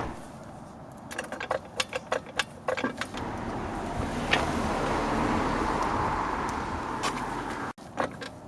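Trolley jack being manoeuvred into place under a car: a run of sharp metallic clinks and rattles, then a steady rolling, scraping noise that cuts off suddenly near the end.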